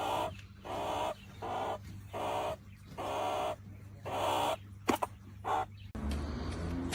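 An animal giving about eight harsh calls in a row, each about half a second long, over a steady low hum that cuts off near the end.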